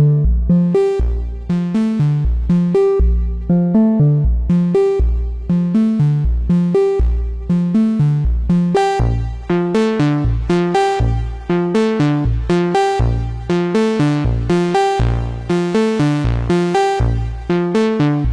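Moog Subsequent 25 analog synthesizer playing an eighth-note sequence: a steady, repeating pattern of short, punchy bass notes. The tone grows brighter about nine seconds in as more treble opens up.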